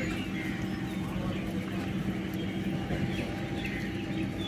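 ICF-built EMU local train standing still, its electrical equipment giving a steady low hum.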